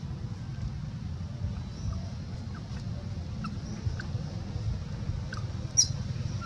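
Outdoor ambience: a steady low rumble of wind on the microphone, with faint short chirps scattered through it and one sharp click near the end.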